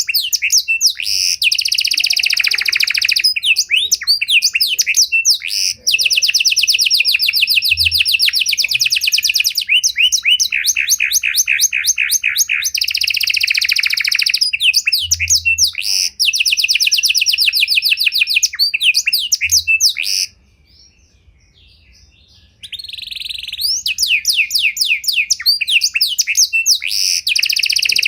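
Panda canary singing a long, varied song of rapid trills and rolls. The song breaks off for about two seconds in the last third, then starts again.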